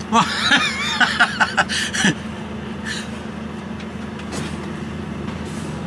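HGV lorry's diesel engine idling steadily, heard from inside the cab, with a man's voice over it for the first two seconds.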